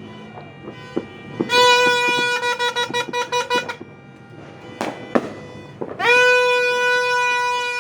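A horn blown in two long, steady blasts of one pitch, about two seconds each, with scattered firecracker pops between them.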